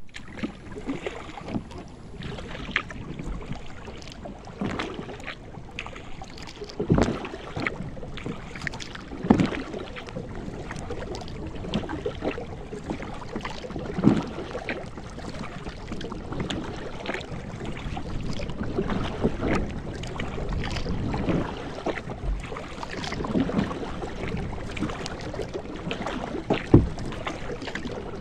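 Kayak paddling on choppy water: paddle splashes and water slapping against the hull come at irregular intervals over a steady rush of wind and water.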